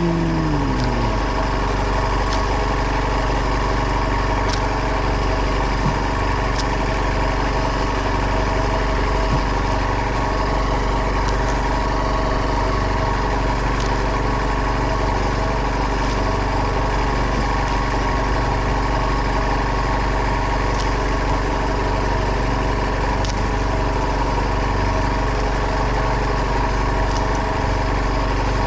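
Boat engine running steadily at a constant speed, a continuous hum with a low drone.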